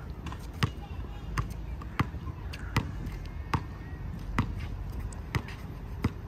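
A basketball being dribbled on an outdoor hard court: a sharp bounce about every three-quarters of a second, eight in all.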